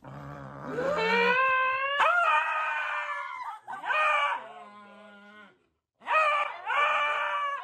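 Beagle howling: about four long drawn-out howls that rise and then fall in pitch, with a short break before the last.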